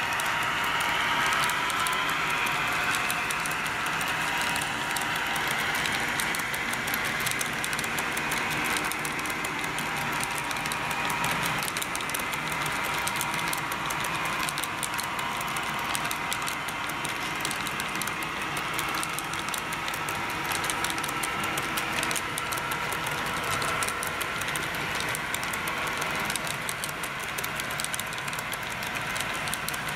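HO-scale model freight train running, led by three model diesel locomotives: a whine that slowly drops and rises in pitch, over a steady rapid clicking and rattle of small wheels on the track.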